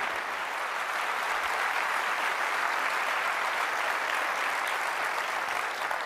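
Large audience applauding steadily, easing off a little near the end.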